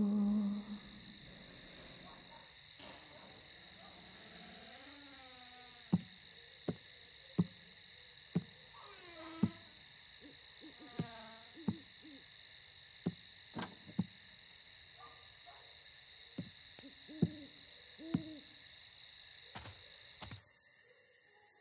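Night ambience: a steady, high chorus of insects, with about a dozen short calls that drop in pitch, spread irregularly through it. The ambience cuts off abruptly just before the end.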